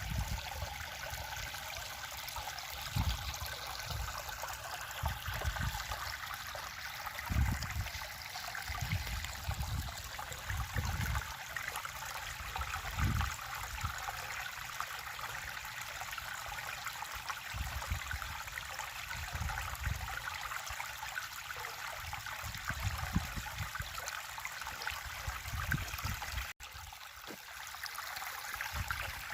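River water flowing and rushing steadily over its bed, with short low rumbles every few seconds.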